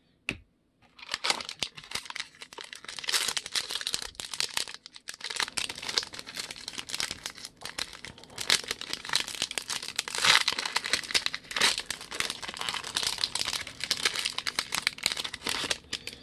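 Plastic wrapper of a 2009 Upper Deck Signature Stars baseball card pack crinkling steadily as it is handled and torn open, after a single click just after the start.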